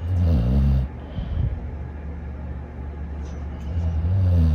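A dog snoring: two loud, low-pitched snores, one at the start and one near the end, with quieter breathing between.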